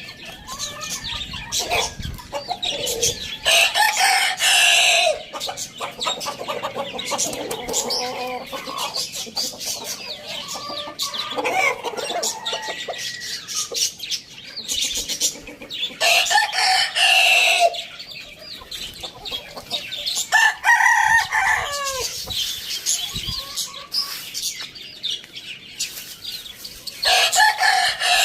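Roosters crowing about four times, each crow long and loud, over continuous clucking and chirping from a flock of chickens.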